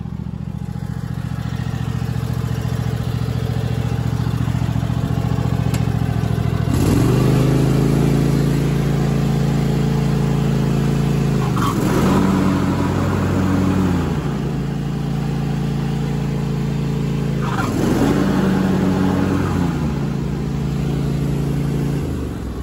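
Cub Cadet XT1 riding mower engine running while the mower deck is engaged twice with its lever, the engine sound rising as it takes up the blade load about seven seconds in and again about eighteen seconds in. Each time it settles back a few seconds later as the deck disengages and the blade brake stops the blades, a sign that the deck linkage now works freely.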